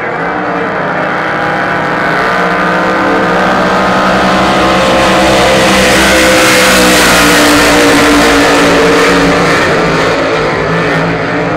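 Several Cracker Box racing boats' V8 engines running flat out as the boats race past, growing louder to a peak a little past the middle and then easing off.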